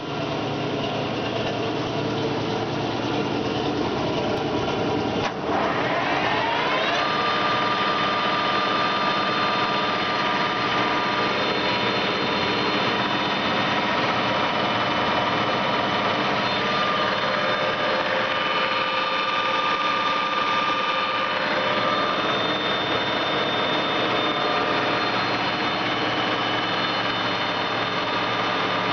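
Semco lathe running with a steady mechanical hum and gear whine. About five seconds in there is a short knock, then the whine rises over a second and a half as the machine picks up to a higher speed and runs on steadily.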